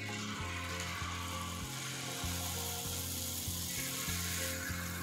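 Jalebi batter sizzling as it is piped into hot ghee: a steady frying hiss that starts at the outset and grows stronger near the end. Background music with a steady, stepping bass line plays underneath.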